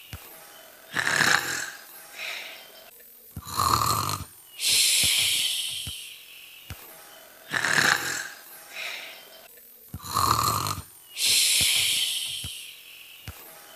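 Imitated snoring by a voice: rasping snores on the in-breath, each followed by a long airy hiss on the out-breath. The cycle repeats about every six and a half seconds.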